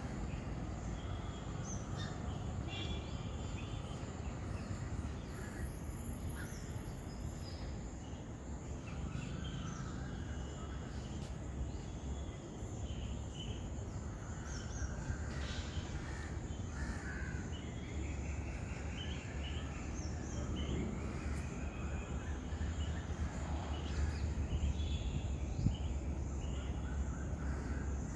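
Outdoor ambience of birds calling now and then, short calls with a few longer curved ones, some crow-like, over a steady low rumble.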